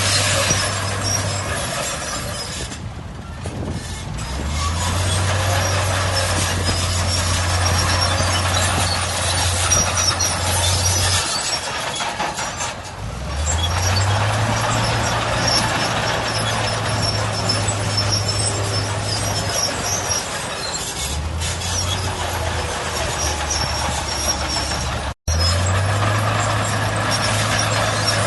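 Heavy diesel earthmoving machinery at work, engines running and revving up and down several times. The sound cuts out for an instant near the end.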